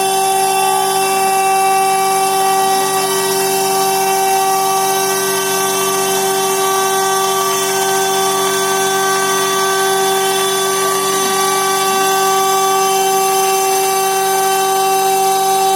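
A small electric motor running at a constant speed with a steady whine.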